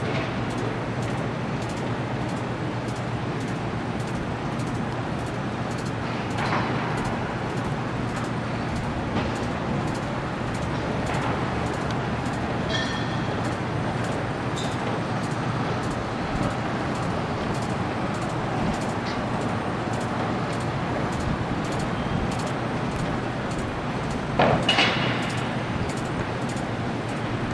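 Steady city traffic and machinery noise with a constant low hum, broken by a few brief louder sounds, the strongest a short clatter near the end.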